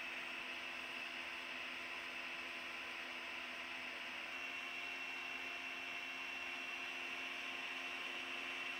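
Steady hum and hiss with a thin high whine; nothing else happens.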